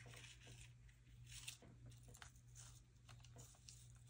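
Faint scraping and rustling as a metal craft spatula slides a small shrunken shrink-plastic piece across paper, with a few short scrapes over a low steady hum.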